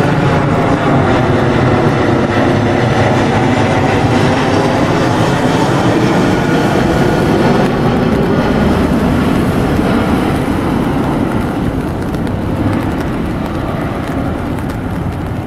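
Boeing 737 MAX 9's twin CFM LEAP-1B turbofans on landing approach, passing low overhead and flying away: loud jet noise with whining tones falling in pitch just after it passes, settling into a steady rumble that slowly fades.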